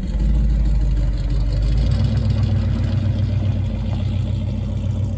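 Rebuilt Ford Bronco V8 with headers and long glasspack mufflers, running with a deep, steady exhaust rumble as the truck pulls away; the engine note shifts about two seconds in.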